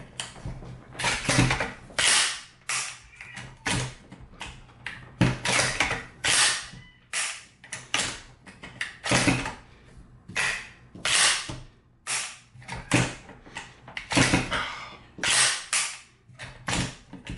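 PTR-91 rifle (HK91/G3 clone) being cycled by hand, over and over: the cocking handle is pulled back and slapped home, so the bolt slams shut with a sharp metallic clack, and the trigger is dry-fired with a click. The new action is still stiff, and this repeated slap-home and dry-fire is done to work it in.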